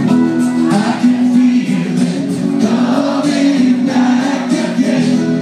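Live rock music: acoustic and electric guitars playing with male singing.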